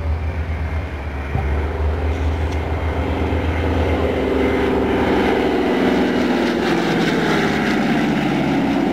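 Douglas DC-3 / C-47 Dakota flying past, its two radial piston engines and propellers giving a steady droning hum that grows louder over the first few seconds and then holds.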